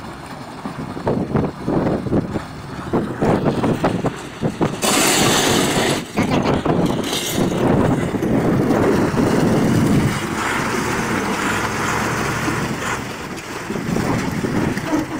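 KAMAZ truck's diesel engine running under load as the truck, broken through river ice, works to drive out through the ice and water. A loud rushing noise breaks in about five seconds in and lasts about a second.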